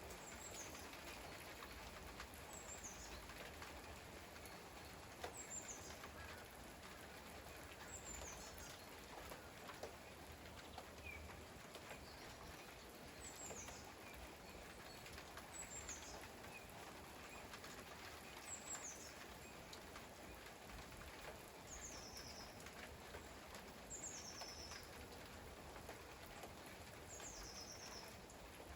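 A small bird repeating a short, high call that falls in pitch, roughly every two to three seconds, over a faint steady hiss of rain.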